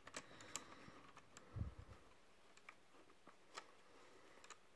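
Near silence with a few faint, scattered clicks and one soft low bump about a second and a half in: handling noise from hands working the plastic parts of a small RC truck.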